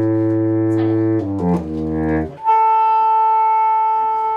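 Saxophone quartet playing sustained chords, with the baritone's low notes underneath. After a short run of changing notes, the low parts drop out about halfway through and a single high note is held on, slowly fading.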